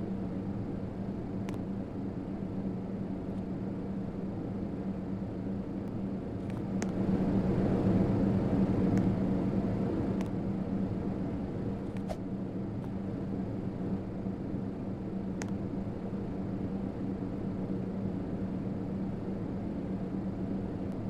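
Hampton Bay Windward II ceiling fan running: a steady motor hum with whooshing air, swelling louder for a few seconds about seven seconds in. A few faint clicks come through.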